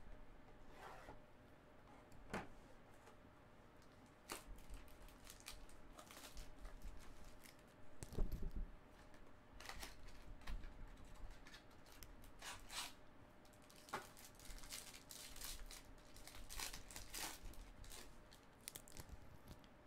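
Plastic and foil trading-card pack wrappers crinkling and tearing as a pack is opened by hand, in short irregular spells, with a dull thump about eight seconds in.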